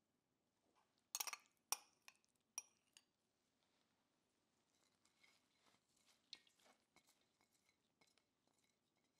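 Metal spoon clinking sharply against a stainless steel colander four times as minced garlic is knocked off it, followed by a few faint soft taps and rustles.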